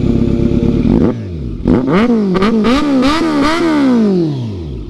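Kawasaki Z900's inline-four engine through an aftermarket Arrow exhaust, idling, then revved with several quick throttle blips from about two seconds in before the revs fall back to idle near the end.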